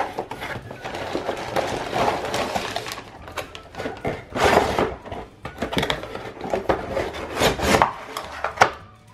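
A cardboard toy box being opened by hand and its packed contents handled: cardboard scraping and plastic bags rustling, with a few sharp knocks and louder swells of rustling.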